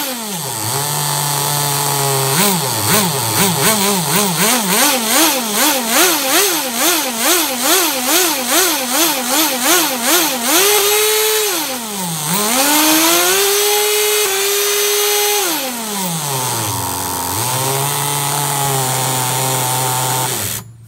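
Small two-stroke glow (nitro) engine of a Kyosho V-One S3 RC car being blipped rapidly, about twice a second, then held at high revs. It drops back to idle and stops suddenly near the end, while the shift point of its two-speed gearbox into second gear is being tested.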